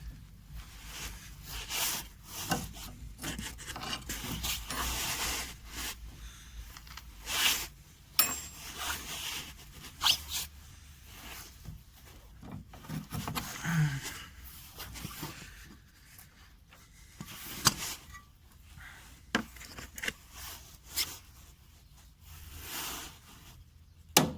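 Wrench with a 13 mm socket turning the nut of a front anti-roll bar link: irregular metal scraping and rubbing, with scattered sharp clicks.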